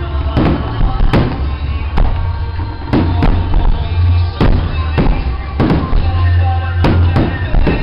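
Aerial firework shells bursting in quick succession, about a dozen loud bangs with a deep rumbling echo, over music playing.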